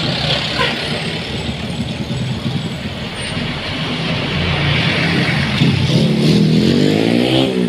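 Diesel engines of a box truck and a coach bus running as they pass close by, over a steady traffic rumble. About six seconds in, a heavy truck's engine revs up, its pitch rising.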